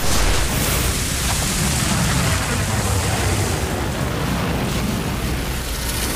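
A loud, steady rushing noise with a deep rumble underneath, without let-up.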